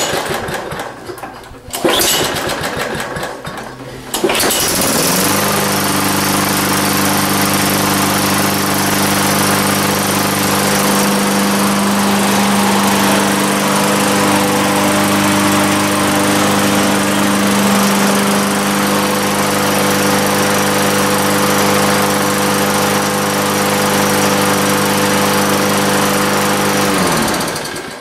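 Walk-behind lawnmower's small single-cylinder engine starting on its first cold start with a newly replaced ignition coil module, a sign that spark is restored. It catches about four seconds in, runs steadily, and stops near the end.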